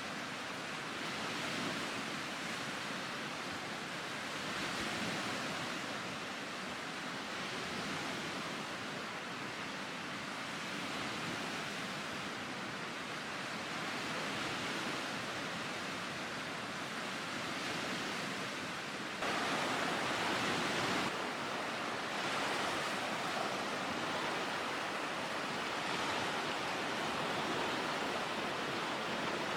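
Small lake waves washing against the shore: a steady rushing that swells and eases every few seconds, briefly louder for a couple of seconds about two-thirds of the way in.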